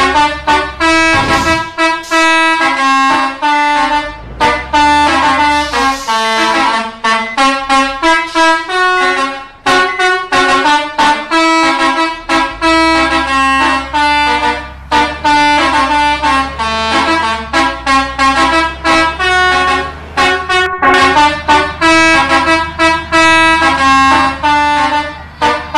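Indonesian bus 'telolet' multi-tone musical horn playing a fast melody of short, bright, trumpet-like notes in quick runs. A low steady rumble sits underneath for much of it.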